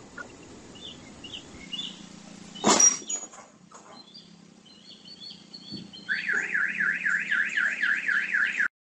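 A car bumps into a parked car with a single loud thud about two and a half seconds in. A few seconds later a car alarm starts, a loud warbling wail rising and falling about four times a second, until it cuts off near the end. Birds chirp faintly in between.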